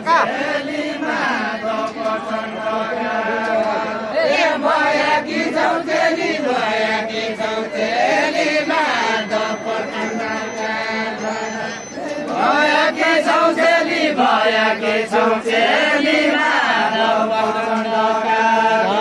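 Voices singing a deuda, a Nepali far-western folk song, in a chant-like melody with long held notes.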